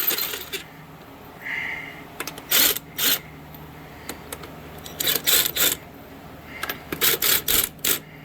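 Small cordless impact wrench firing in a series of short trigger bursts on a wheel's lug nuts to break them loose.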